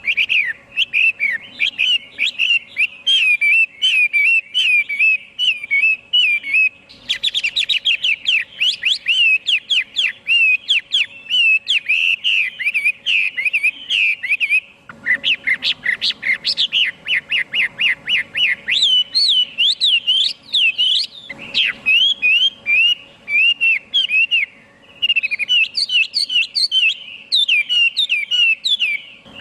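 Chinese hwamei (Garrulax canorus) singing a loud, continuous song of rapid whistled notes, switching to a new repeated phrase every few seconds.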